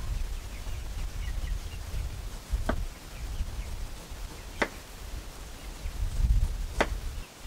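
Knife chopping into a pineapple on a wooden chopping board: three sharp knocks about two seconds apart.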